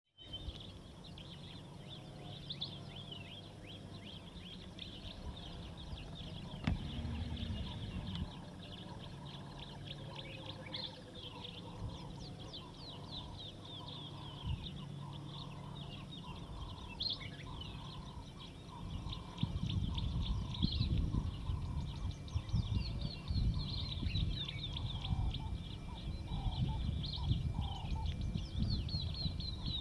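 Mixed wild birdsong: many birds chirping and twittering throughout, with a repeated lower call in the middle and a steady high thin tone that enters about two-thirds of the way in. From about two-thirds in, low irregular rustling and thumps grow louder under the birds.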